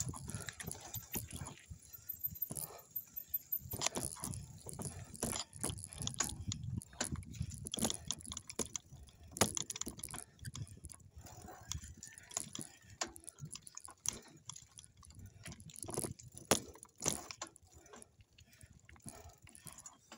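Mountain bike rattling and knocking over a rough off-road trail: irregular clicks and knocks over a low rumble.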